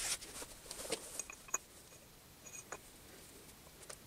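Faint scattered clicks and light taps, most of them in the first second and a half, with a few short high pips among them, then dying down.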